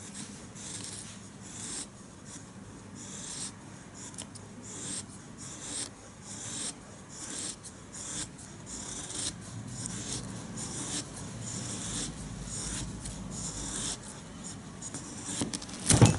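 A high scandi-grind bushcraft knife shaving feather-stick curls off a piece of wood: short scraping strokes, a little more than one a second. A sharp knock comes near the end.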